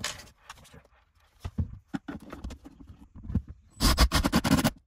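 Power screwdriver briefly running, driving a screw through an LED light stick's mounting clip into a plywood shelf for about a second near the end. Before it, a few light knocks and clicks from handling the parts.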